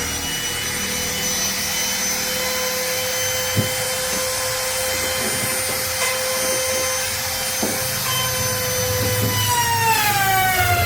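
Electric woodworking power tool running at high speed with a steady high whine and a couple of light knocks; near the end its pitch drops.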